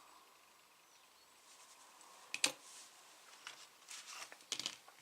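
Small objects being handled close by: a few light clicks and rustles, with one sharper click about halfway through and a quick run of small ticks near the end.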